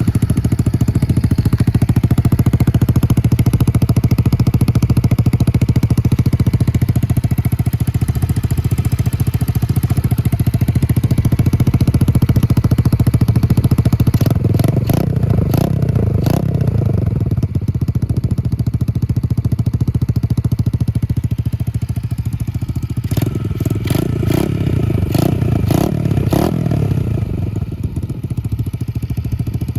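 2022 Yamaha TTR110's small four-stroke single-cylinder engine running through a BBR D3 full aftermarket exhaust, a steady idle with the throttle opened in bursts about halfway through and again near the end.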